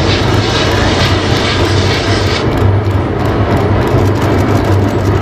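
Pressure washer running: a loud, steady rush of spraying water over a motor hum, as mud is blasted off a toy train.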